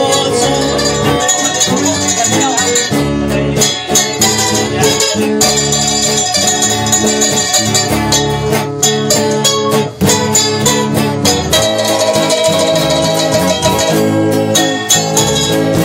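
Live instrumental string-band music: an acoustic guitar and an upright bass playing a steady tune.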